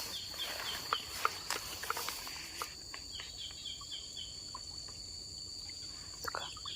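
Insects droning with a steady high-pitched buzz. Two runs of short, quick high chirps come through, one at the start and one near the end, along with scattered faint clicks.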